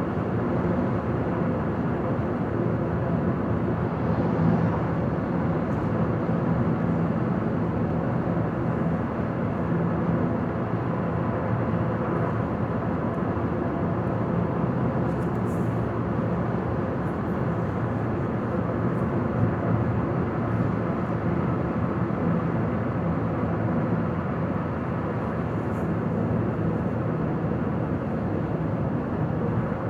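Car cruising at highway speed: a steady engine hum under constant tyre and road noise.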